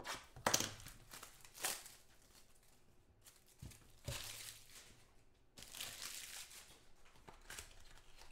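Foil trading-card pack wrappers crinkling and tearing open in several short bursts of rustling.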